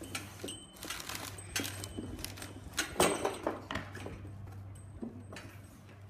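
Polystyrene foam tray of a chemistry kit being slid and lifted out of its cardboard box: scraping and rustling of foam against cardboard, with small parts clicking and rattling in the tray. The loudest knock comes about three seconds in.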